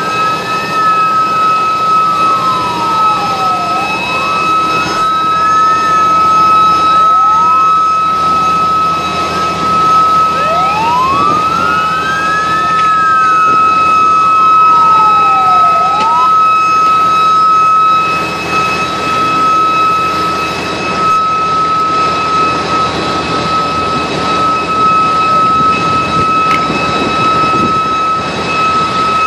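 Emergency vehicle siren wailing, sweeping up and down in pitch several times, then stopping about sixteen seconds in. Under it, fire engines run steadily as they pump a high water stream, with a constant high-pitched whine.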